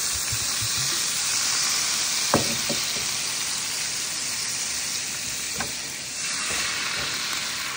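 White wine sizzling steadily in a hot frying pan as it deglazes the browned fond, with a few sharp ticks in between.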